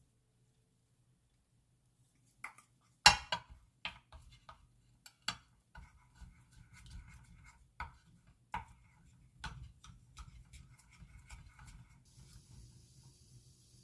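Kitchen handling sounds: a series of sharp clinks and knocks of utensils against dishes, the loudest about three seconds in, after a couple of seconds of near silence. A steady hiss begins near the end.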